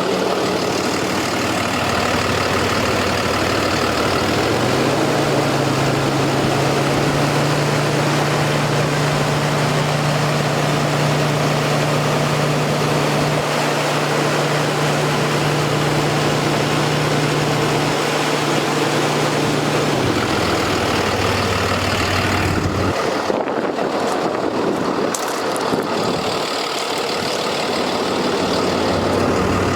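Cummins B6.7-litre diesel engine of a medium-duty dump truck idling. About five seconds in, the engine speed steps up and holds steady for about fifteen seconds, then drops back to idle.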